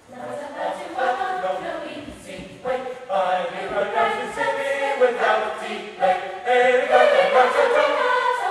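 Mixed choir of treble and bass voices singing together in harmony, growing louder in the second half.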